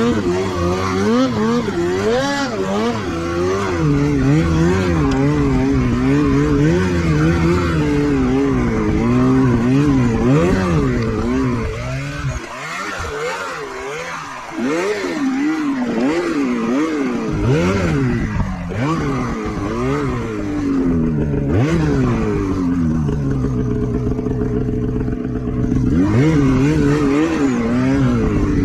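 Snowmobile engine revving up and down over and over as it is ridden, the throttle easing off and the sound dropping quieter for a few seconds about halfway through.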